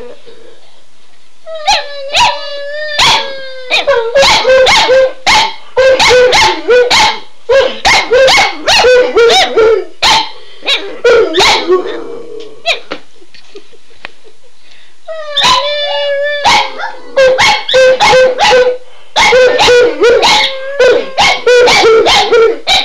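Dog barking in quick, loud runs, broken by drawn-out howls that slide slightly down in pitch about two seconds in and again about fifteen seconds in, with a short lull in between.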